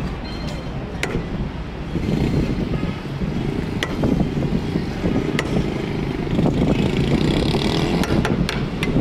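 Road traffic, cars and motorcycles running past, under sharp metal clinks of a ladle against a steel cooking pot and serving plate, a few spread out and several close together near the end.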